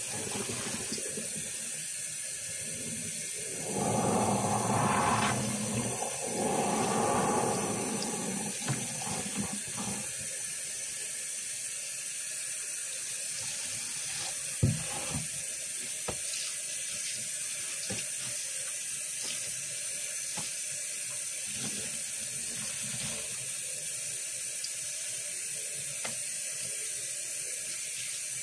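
Kitchen faucet running a thin stream into a dish pan of soapy water in a stainless steel sink, with a sponge squelching and the water sloshing. A louder stretch of sloshing comes a few seconds in, and a single sharp knock about halfway through.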